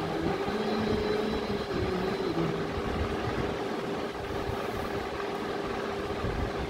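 Steady background hum over a constant noisy din, with no distinct events.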